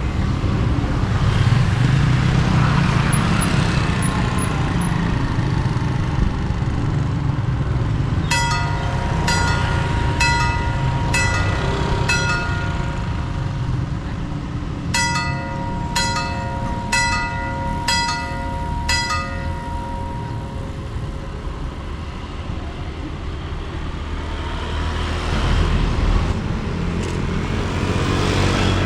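A train running past at a level crossing with a continuous heavy rumble. Twice a warning signal sounds over it, for about four seconds and then about five seconds. Each time it is a steady multi-note tone with ringing strokes about one and a half per second.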